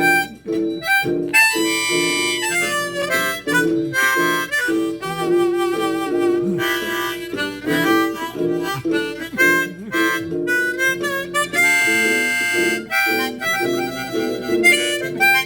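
Harmonica playing an instrumental break, with held chords and melody lines, over a rhythmic guitar accompaniment.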